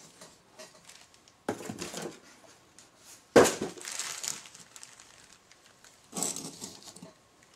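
Handling noise on a tabletop: a small plastic bag crinkling and metal tool parts being set down, in three short bursts, the loudest a sharp clack about halfway through.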